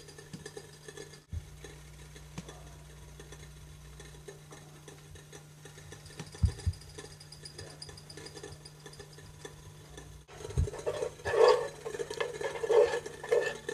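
Metal spoon stirring melted dark chocolate in a saucepan set over a double boiler, scraping and clinking against the pan in the last few seconds. Before that, a few soft knocks from handling over a steady low hum.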